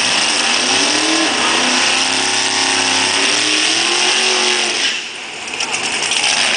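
Nitrous Top Sportsman drag car's V8 held at high revs during a burnout, the rear tires spinning in thick smoke. The engine note climbs slowly and then falls, dropping away about five seconds in before picking up again near the end.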